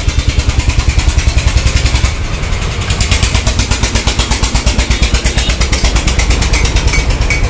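Small engine idling with an even beat of about seven pulses a second, dipping briefly about two seconds in.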